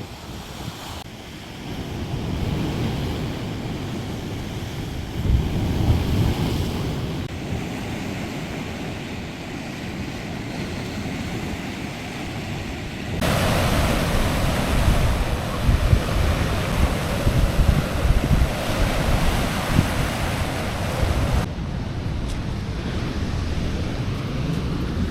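Sea surf breaking along the shore with strong wind buffeting the microphone. The surf gets louder and brighter for several seconds past the middle, and the change starts and ends abruptly.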